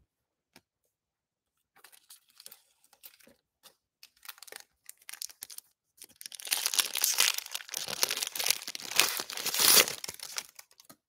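Foil wrapper of a trading-card pack being torn open and crinkled by hand, loud and dense for the last five seconds or so. Before that come a few seconds of faint rustles and light clicks.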